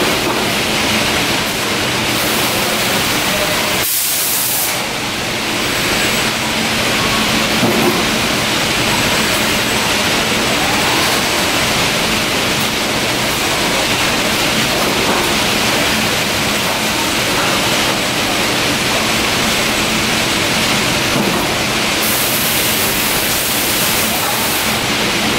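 Steady factory machinery noise: a loud, even hiss with a low hum underneath, briefly dipping about four seconds in.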